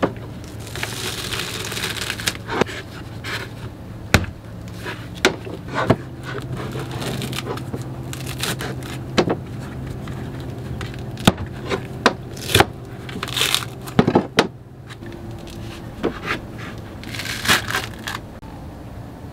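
Claw hammer striking and prying the fibrous husk off a coconut: irregular sharp knocks mixed with scraping and ripping of husk fibres, with a steady low hum underneath.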